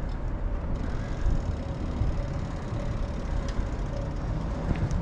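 Low, uneven rumble of wind and rolling noise on a bicycle-mounted camera's microphone as the bike crosses a steel footbridge, with a faint steady hum and a few light clicks.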